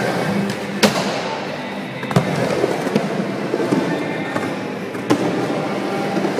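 Skateboard wheels rolling over a skatepark bowl in a steady rumble, with sharp clacks of the board about a second in, a little after two seconds and around five seconds.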